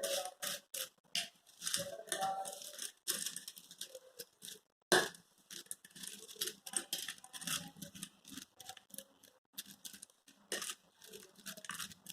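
A spoon stirring a sprout salad with cornflakes and chopped vegetables in a bowl: a run of irregular, quiet scrapes, taps and crunchy rustles.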